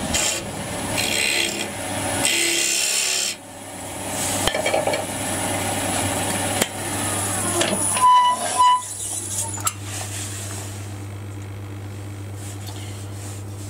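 Hand-held lathe scraper cutting into a spinning wooden box blank, a scraping hiss that stops and starts over the first several seconds as a tiny lip is trimmed from the hinge recess. Then the tool comes away and a steady low hum goes on, with a few light clicks as the work is handled.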